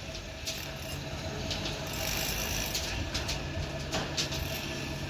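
Steady engine hum of site machinery with a constant whine, under light, irregular metallic clicks and scrapes as steel tie wire is twisted around rebar crossings with a hand tying tool.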